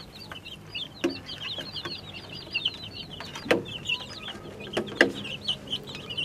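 A flock of baby chicks peeping constantly, many short high chirps overlapping. A few sharp taps cut through, the loudest about five seconds in.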